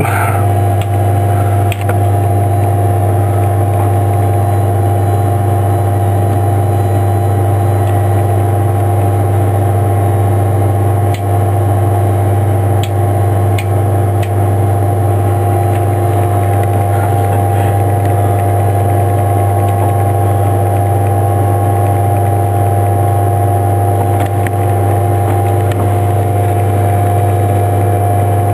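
Steady, unchanging hum of running electrical equipment in an aircraft powered up on the ground, a low drone with several steady tones above it. A few faint clicks come near the middle.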